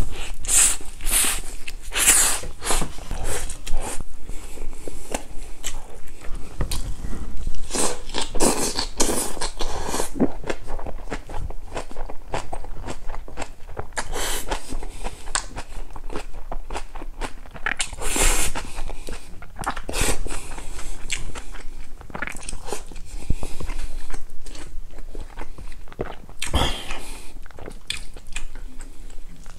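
Close-miked eating: a big wrapped bite of crunchy kimchi with boiled pork and rice, bitten into and then chewed, with many crisp crunches and wet chewing throughout.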